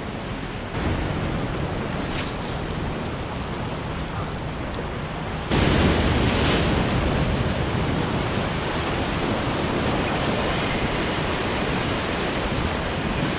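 Ocean surf breaking and washing against jetty rocks, a steady rushing wash that suddenly grows louder about five and a half seconds in.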